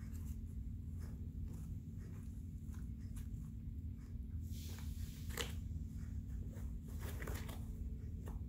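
Corrugated cardboard cat scratcher scratching and crackling as a kitten paws, rubs and chews at it, with louder scratches about five and seven seconds in, over a steady low hum.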